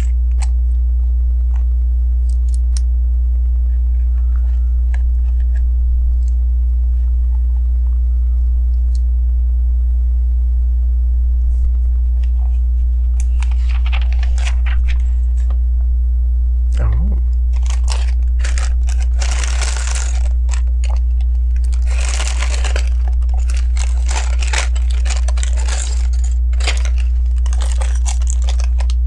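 Steady low electrical hum throughout, with a few light clicks of LEGO pieces being handled. From about halfway on come repeated bursts of crinkling and rustling, like hands searching through a plastic parts bag.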